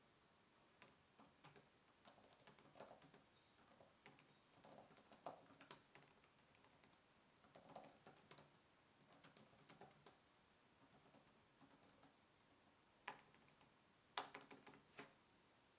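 Faint typing on the Microsoft Surface Pro 7's Type Cover keyboard: runs of quick key clicks with short pauses, and a few louder keystrokes near the end.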